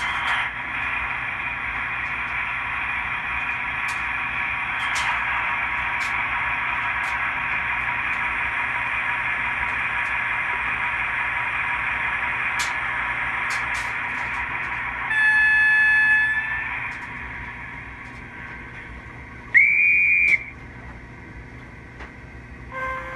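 Märklin 3070 model locomotive's digital sound decoder playing through its small speaker: a steady hissing running sound for about fifteen seconds, then a horn blast of several tones lasting about two seconds, and a short high whistle a few seconds later.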